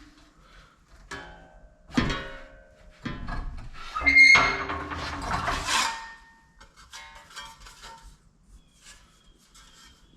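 Sheet aluminum being worked into a 90-degree bend: a sharp metal knock with a short ring about two seconds in, then a louder stretch of rubbing and squealing metal, followed by lighter clatter.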